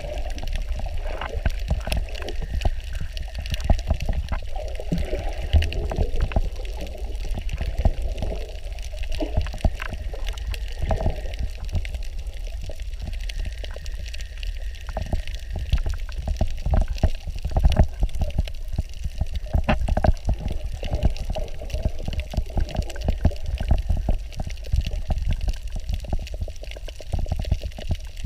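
Underwater sound picked up by a camera in its waterproof housing: a steady, muffled low rumble of moving water with frequent crackling clicks throughout.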